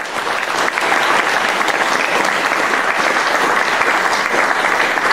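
An audience applauding: dense, even clapping from many hands.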